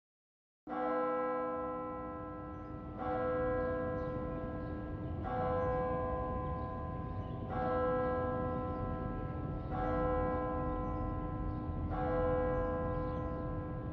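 A bell tolling slowly: six strikes of the same note, a little over two seconds apart, each left to ring on, over a low steady rumble. It begins just under a second in, out of silence.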